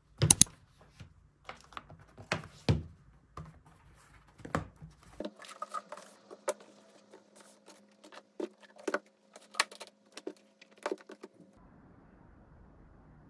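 Laptop and tablet being handled on a desk: a run of sharp taps, clicks and knocks, the loudest right at the start, as the laptop is closed and the devices are put with a fabric sleeve. A faint steady hum runs under the middle part, and a faint hiss is heard near the end.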